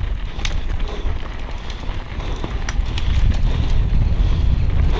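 Wind buffeting an action-camera microphone as a downhill mountain bike rolls down a dirt singletrack, with tyre noise on the dirt and a few sharp clicks and rattles from the bike. The wind rumble grows louder in the second half as the bike picks up speed.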